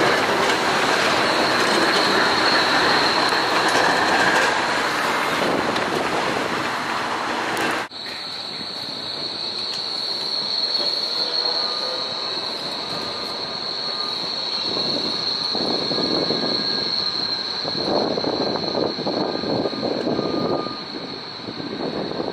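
Berlin low-floor trams passing, steel wheels rolling on the rails with a steady high-pitched wheel squeal. The level drops sharply about 8 seconds in; the squeal carries on from a second passing tram, with some rail clatter near the end.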